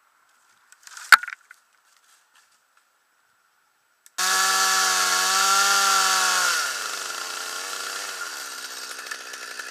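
A single sharp crack of wood about a second in. Then a Stihl MS 200T top-handle two-stroke chainsaw starts up abruptly at full throttle and, a couple of seconds later, drops in pitch and bogs as it bites into a maple limb, cutting under load.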